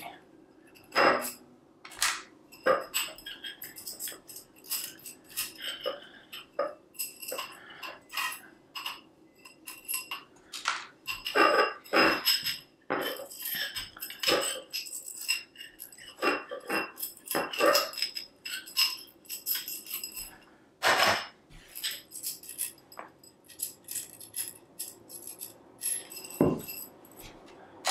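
Tensegrity struts and tendon joints being worked apart by hand: a busy, irregular clicking, knocking and jangling as the barbed connectors are pushed, turned and pulled free and the struts knock together.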